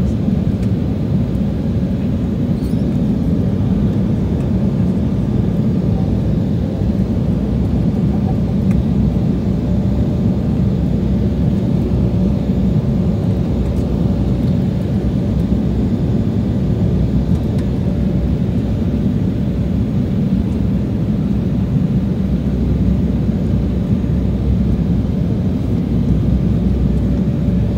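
Steady cabin noise of a jet airliner in flight: a low, even rushing drone with a faint steady hum above it.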